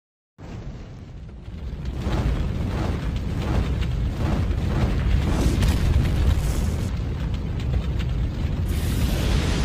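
Intro sound effect of a deep, continuous fiery rumble, like an eruption. It starts about half a second in, swells over the next second or two, and has hissing whooshes rising out of it near the middle and again near the end.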